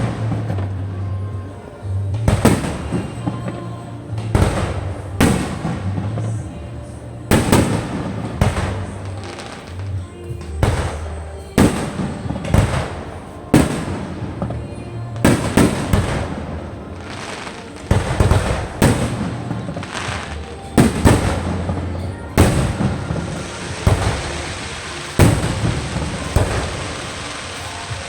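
Fireworks display: shells bursting in a steady run of loud bangs, about one every second or two, with a dense crackle of bursting stars near the end.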